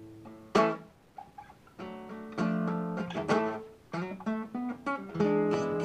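Acoustic guitar played by hand, chords plucked and strummed: one loud chord about half a second in, a short pause, then a steady run of ringing chords.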